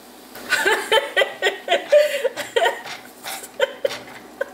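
A woman laughing, a string of short giggles that starts about half a second in.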